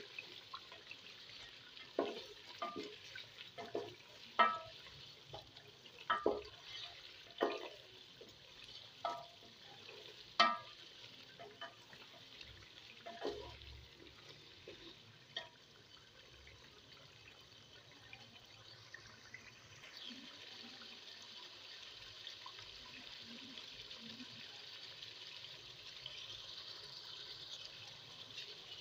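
Chicken pieces sizzling in oily tomato masala in a granite-coated pot, a steady hiss. In the first half a wooden spatula stirs them, with about a dozen sharp clacks against the pot; after that only the sizzle goes on.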